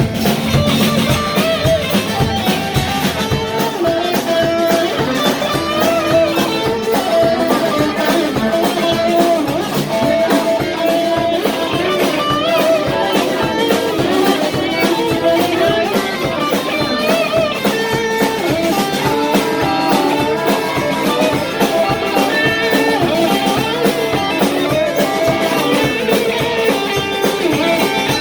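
Live band playing an instrumental stretch of a rock song, electric guitar leading over drums with a steady beat.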